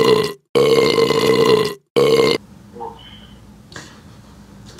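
A loud, steady buzzing drone, cut by two brief dropouts to dead silence, that stops about two and a half seconds in.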